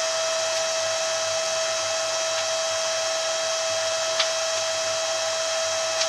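Steady whirring hiss with a constant high hum inside the cabin of an electric automated shuttle driving at a slow, even speed. There is a faint click about four seconds in.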